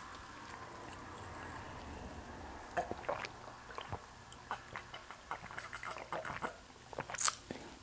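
A person drinking from a glass jar, with a string of small swallowing gulps and mouth clicks heard close on a clip-on microphone, then a brief hissing sound near the end.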